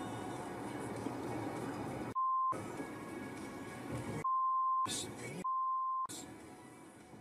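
Three censor bleeps, steady single-pitch tones that blank out all other sound while they play: the first short, the next two longer. Between them, road noise inside a moving car.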